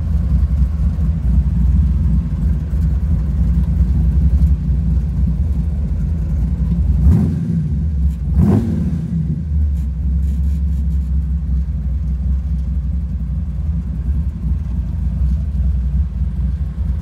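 Vintage pickup truck engine running with a steady low rumble, heard from inside the cab. It is revved up and back down briefly twice, about seven and eight and a half seconds in.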